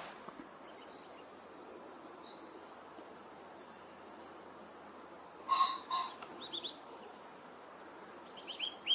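Small songbirds calling and singing over a faint steady outdoor hiss. There are scattered short high chirps, a louder burst of calls about five and a half seconds in, and a rapid trill of repeated notes starting near the end.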